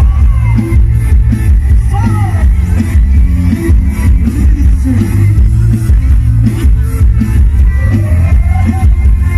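Loud music with a strong, pulsing bass played through the speaker stacks of a Thai rot hae mobile stage truck, with a voice over it.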